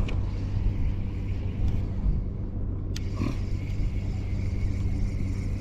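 Small boat motor running steadily, a low even hum, with a single sharp click about three seconds in.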